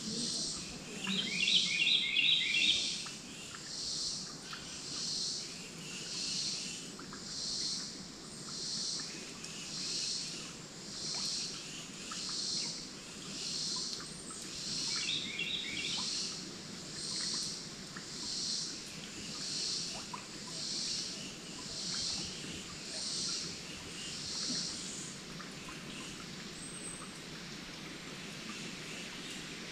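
Woodland ambience: a high, pulsing call repeats about once a second and stops near the end. A short bird trill comes twice, near the start and about halfway.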